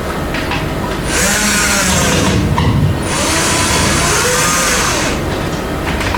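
Electric drill running in two bursts of about two seconds each, its motor pitch wavering under load, while the consumer unit enclosure is being fixed to the wall.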